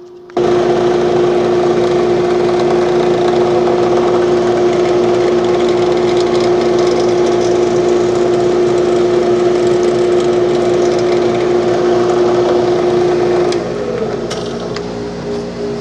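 An electric woodworking machine switches on and runs steadily with a strong, even hum. About 13 seconds in it gets quieter and its pitch shifts slightly higher and wavers, with a few light clicks.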